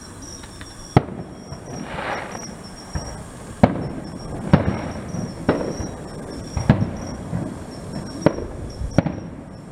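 Aerial firework shells bursting overhead: about eight sharp bangs at irregular intervals, with a brief hissing rush about two seconds in.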